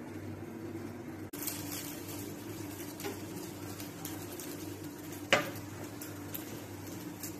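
Egg-dipped bread slices sizzling and crackling in a frying pan, the sizzle starting abruptly about a second in over a steady low hum. One sharp clink of a utensil against the pan about five seconds in is the loudest sound.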